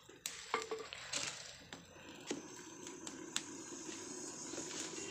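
Dry leaves crackling and popping as they catch fire in the firebox of a mud stove, with scattered sharp cracks over a hiss of burning that thickens after about two seconds as the embers flare into flame.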